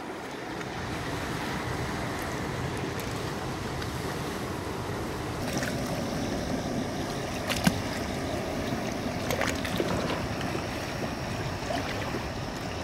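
Water sloshing and lapping around a freshwater drum held at the surface so it can recover before release, with a few small knocks.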